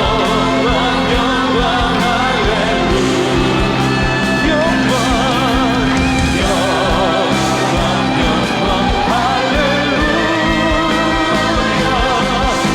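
Live contemporary worship band with several singers holding long notes with vibrato over keyboards, bass, electric guitar and drums with cymbals.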